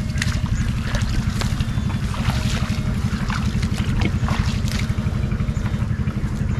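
A small engine running steadily with a fast, even low pulse, with scattered light clicks and knocks over it.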